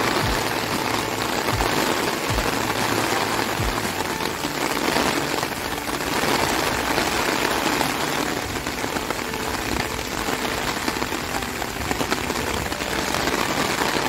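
Heavy rain falling on a lake's surface and the trees around it: a steady, dense patter of drops.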